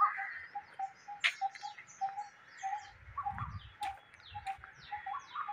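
Birds calling: one repeats a short low note about three times a second, while others give quick, falling high chirps. A couple of faint clicks come in between.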